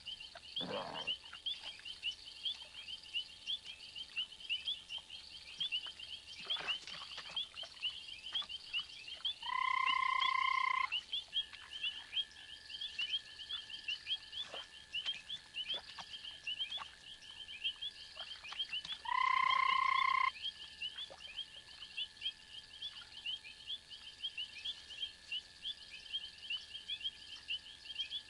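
Night chorus of frogs: rapid short high chirps, several a second, throughout. Twice, about ten seconds apart, a loud, steady pitched note sounds for about a second and a half, and a thin, steady high tone holds on in between.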